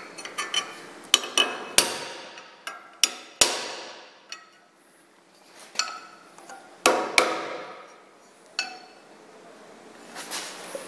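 A hammer strikes a copper punch held against a crash-twisted sheet-metal motorcycle saddlebag mount clamped in a bench vise, driving the bent metal back into shape. About a dozen irregular sharp metallic strikes, some ringing briefly, with a pause of about a second a little before the middle.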